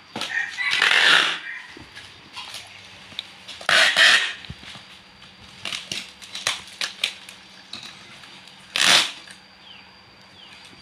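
Packing tape pulled off a handheld tape dispenser in three loud screeching strips, a long one at the start, one about four seconds in and one near the end, sealing bubble wrap. Between the second and third pulls the bubble wrap crackles and clicks as it is handled.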